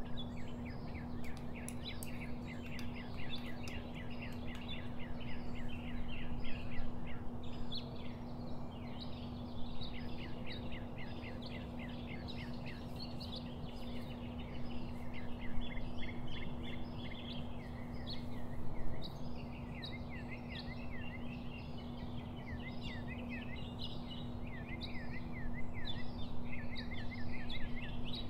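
Small birds chirping continuously, with many quick repeated chirps, over a steady low hum and background noise.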